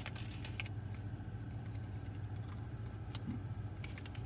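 Steady low hum of a running car heard inside the closed cabin, with a few faint small clicks from handling a candy packet.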